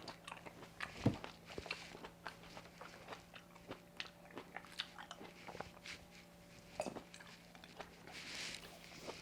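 Close-up chewing of Shine Muscat grapes: bites and chewing with many short mouth clicks, the sharpest bite about a second in.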